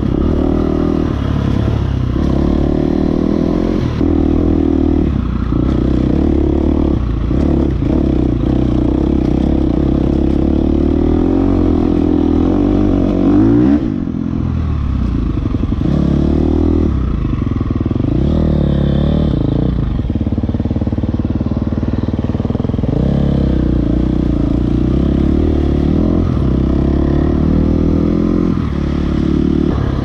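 Dirt bike engine running hard on a trail ride, its revs climbing and dropping again and again as the rider works the throttle and gears, with rattling from the rough trail. It revs highest about thirteen seconds in, then briefly eases off.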